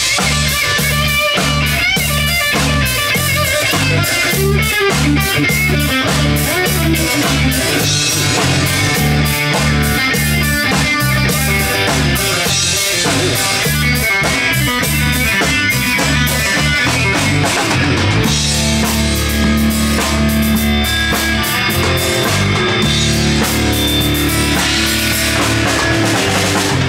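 Live rock band playing an instrumental break with no singing: electric guitars over a drum kit. The choppy, pulsing rhythm gives way to longer held notes about eighteen seconds in.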